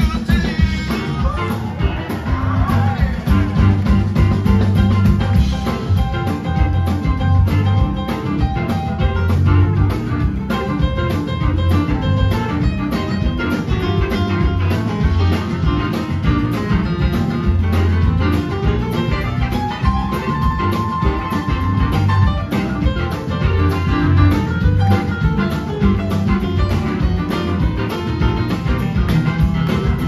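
Live blues-rock band playing an instrumental passage of a slow blues: electric guitars and organ over bass and drums keeping a steady beat.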